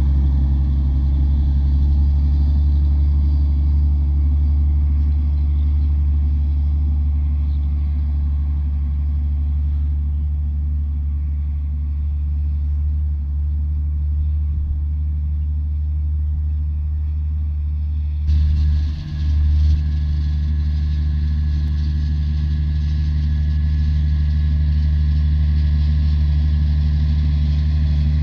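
Steady low drone of a vehicle engine running at a constant speed, holding one pitch throughout.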